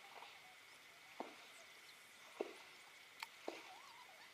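Small splashes at the water's edge: four short, sharp plops spread across a few seconds, over a faint steady high hum.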